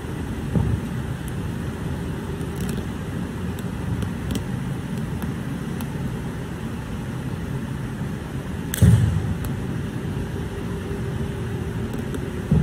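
Thumps from a changquan performer's footwork landing and stamping on a carpeted floor, three of them, the loudest about two-thirds of the way through, over a steady hiss of room noise.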